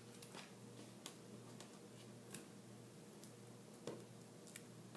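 Near silence, with a few faint, scattered light clicks and taps of cardstock pieces being handled and pressed down on a craft mat; the most distinct comes about four seconds in.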